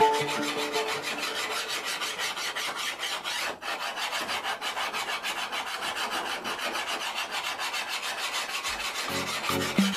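Hand file rasping along the steel edge of an old billhook blade, sharpening it in quick, even back-and-forth strokes.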